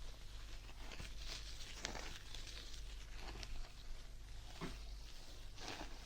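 Soft, irregular rustling and crackling handling sounds close to the microphone, in several short bursts.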